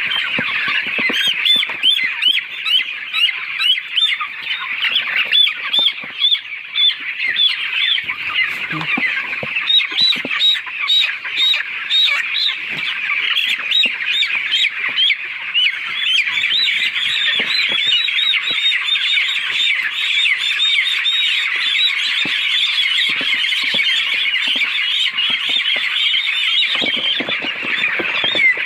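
A large flock of poultry calling all at once: a dense, unbroken chorus of many short, overlapping high-pitched calls.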